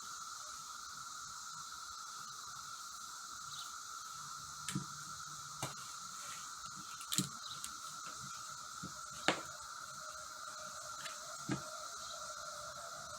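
Quiet steady background hiss with a faint steady tone, and a handful of light, scattered clicks and taps, about six over the span.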